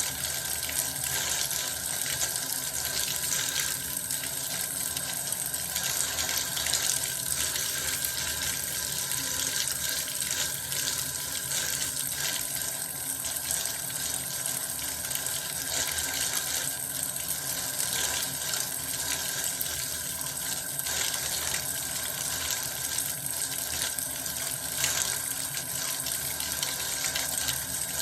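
Bath water running steadily from a tap, an even, unbroken splashing of water.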